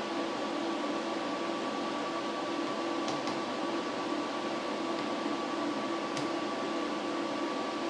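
Steady hum of idle shop machinery with a constant high tone, and a few faint clicks as small parts are handled, about three seconds and six seconds in.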